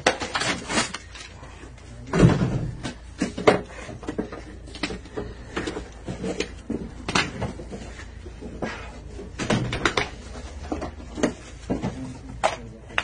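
Irregular knocks and rattles of a car door and its loose inner trim panel being handled, with wrapped packages being pulled out of the door cavity; the loudest knock comes about two seconds in.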